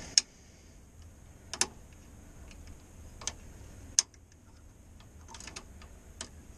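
Sharp, irregular clicks and snaps from the hose and connector fittings of an EVAP canister vent valve solenoid being worked by hand, the loudest near the start and about four seconds in.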